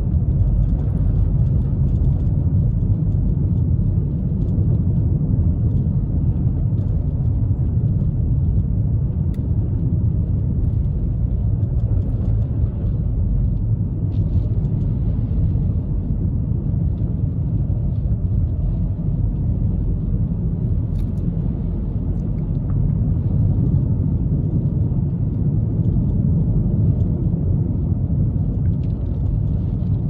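Steady low rumble of road and tyre noise inside the cabin of a Suzuki Kizashi driving on a snow-covered road on Michelin X-Ice3+ winter tyres.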